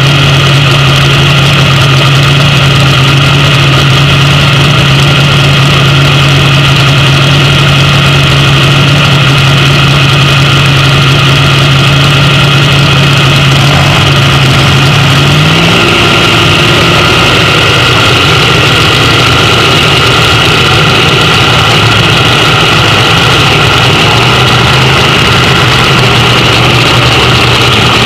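An A/Fuel dragster's nitro-burning V8 idling loudly and steadily, its pitch stepping up slightly about halfway through.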